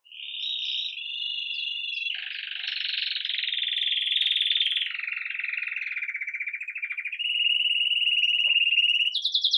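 Belgian canary singing its campainha (bell) song: a continuous run of rolled trills that starts abruptly and shifts pitch every couple of seconds. The song dips lower through the middle and jumps to a higher, faster trill near the end.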